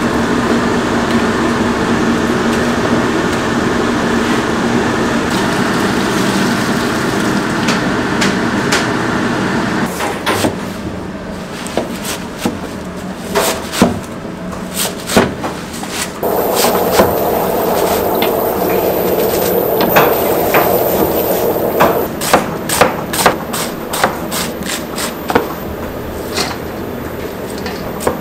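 A large pot of water at a rolling boil over a burner, a steady roar. About ten seconds in it gives way to a chef's knife chopping chives and then slicing cucumber on a plastic cutting board: sharp knocks, scattered at first, then quick runs of chops. A steady noise comes back behind the chopping about halfway through.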